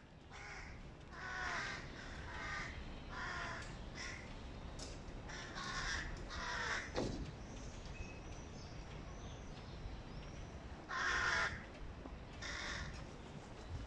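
Hooded crow fledglings begging with harsh caws, repeated again and again with a short lull in the middle and the loudest call near the end.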